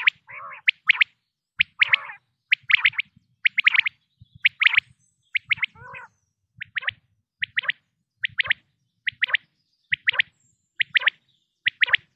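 Common quail calling: sharp, clipped notes in quick groups of two or three, repeated over and over, with soft lower purring notes between the groups in the first half.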